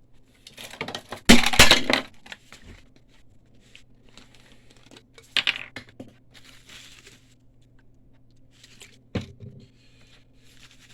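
Workbench handling noises while cleaning supplies are readied for flushing a clogged DTG printhead with alcohol. A loud, rough burst comes about a second and a half in, a shorter one mid-way and a sharp knock near the end, over a steady low hum.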